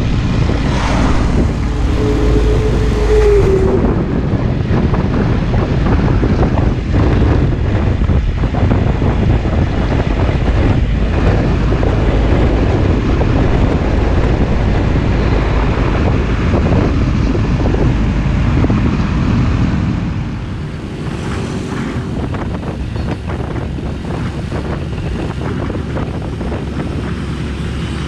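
A Hino Ranger truck's diesel engine and tyres running at road speed, heard from a motorcycle riding close behind and then alongside it, with heavy wind noise on the microphone. A brief steady tone sounds about two seconds in, and the noise eases a little after about twenty seconds.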